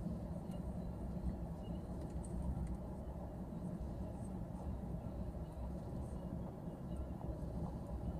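Steady low rumble of idling car engines and traffic, heard from inside a stopped car's cabin.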